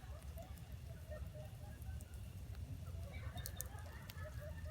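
Wood campfire crackling, with a quick cluster of sharp pops a little past three seconds in, over a low steady rumble and faint distant calls.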